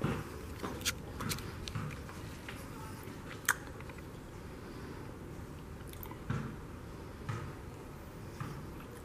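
Footsteps on a tile floor and light knocks of a handheld camera being carried through a room: scattered short clicks over a low steady hiss, a sharper click with a brief ring about three and a half seconds in, then softer steps about a second apart.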